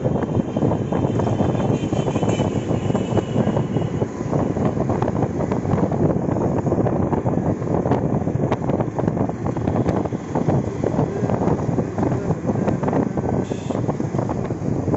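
Wind buffeting the microphone over rumbling road noise, heard from a moving open vehicle on a street. A brief higher-pitched sound comes near the end.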